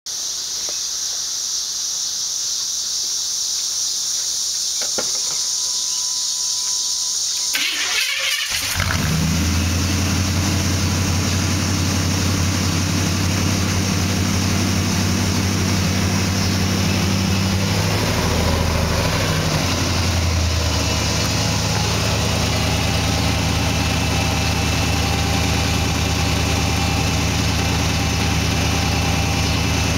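1991 GMC Sierra K1500's 350 small-block V8 with a mild cam, heard through true dual exhaust without glasspacks. The engine starts about eight seconds in and settles into a steady idle, with one brief rev about twenty seconds in.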